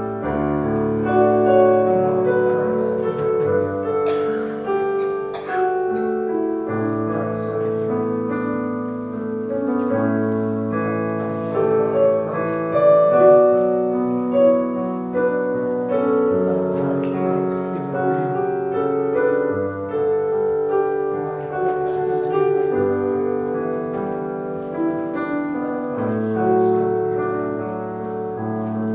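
Piano playing slow, sustained chords in a quiet, steady instrumental.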